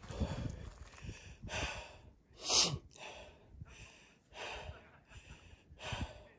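A hiker breathing hard from the exertion of a long, steep climb: a string of short, hissy breaths in and out, the loudest about two and a half seconds in, with soft footfalls on the leafy trail in the first second.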